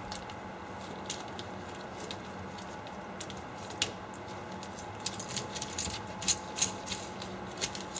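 Small clicks and taps of stainless steel vacuum flange parts being handled as a hinged clamp is fitted around two flanges and their O-ring centering ring, more frequent in the second half. A steady low hum runs underneath.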